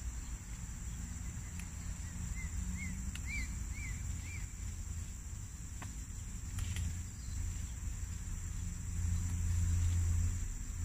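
Outdoor garden ambience: a steady high-pitched insect drone over a low rumble on the microphone, the rumble growing louder near the end. A bird gives a run of five quick chirps about two seconds in, and a few sharp clicks sound.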